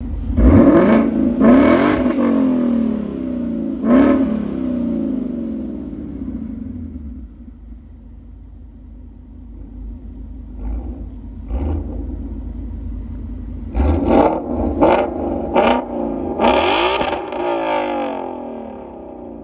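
Ford Mustang S550 GT 5.0-litre V8s with aftermarket exhausts, revved while parked. There are a few sharp blips in the first four seconds, a stretch of idle, and then a quick run of revs about two-thirds of the way in.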